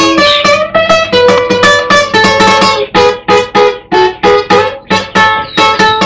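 Solo acoustic guitar picking a bachata, a steady run of single plucked notes about three a second, each ringing briefly.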